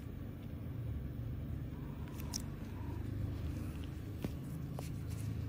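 A steady low rumble with a few faint, short clicks scattered through it, the sharpest about four seconds in.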